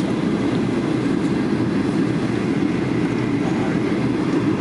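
Steady roar of an airliner cabin in flight: engine and airflow noise heard from a passenger seat.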